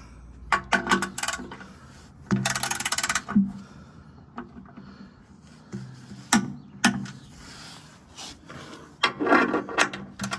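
Ratcheting torque wrench with a 12 mm socket driving skid-plate bolts: bursts of rapid ratchet clicks with pauses between strokes. The longest run comes about two to three seconds in, and a few single sharp clicks follow around the middle.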